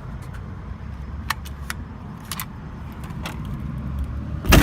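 Keys jingling with scattered light clicks over a steady low rumble, then a loud thump near the end.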